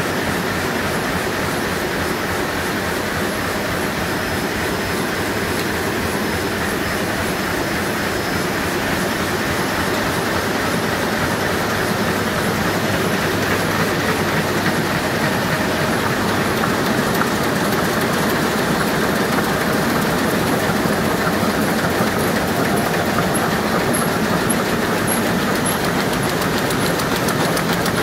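2001 Heidelberg Speedmaster SM74 five-colour sheetfed offset press running, a steady dense rapid rattle of its printing units and sheet feeder. It gets slightly louder about halfway through.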